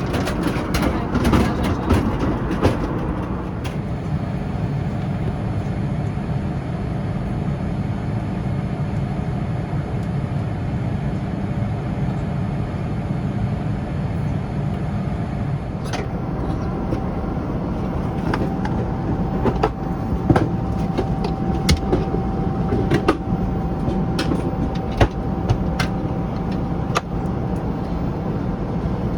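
Steady roar of an airliner cabin in flight, the Boeing 787-9's engine and airflow noise heard from a business class seat, with scattered light clicks and knocks of small items being handled.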